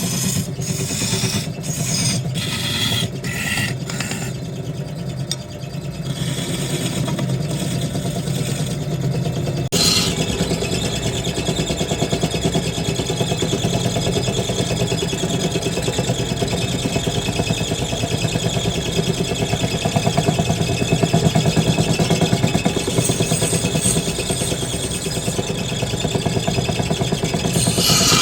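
Wood lathe running with a steady motor hum while a turning tool scrapes and cuts the spinning wood, in short strokes at first, then continuously from about ten seconds in.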